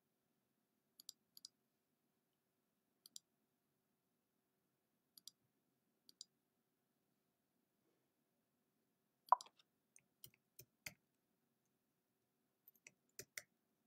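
Near silence broken by faint, scattered clicks from working a computer: a few single clicks, then a louder one about nine seconds in, followed by a quicker run of clicks near the end.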